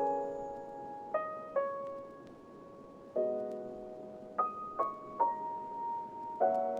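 Slow, gentle instrumental background music: a held chord about every three seconds, with single sustained notes sounding between the chords.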